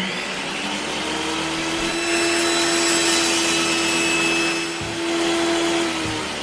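An electric motor spins up quickly, runs at a steady pitched hum with a noisy rush for about six seconds, then winds down near the end.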